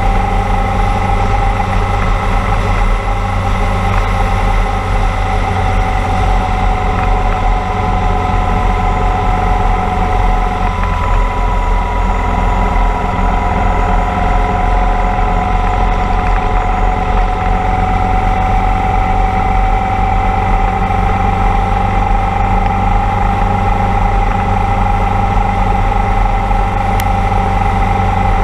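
Motorcycle engine running steadily at cruising speed, with road and wind noise. Its steady whine drops slightly in pitch about ten seconds in, then slowly climbs again.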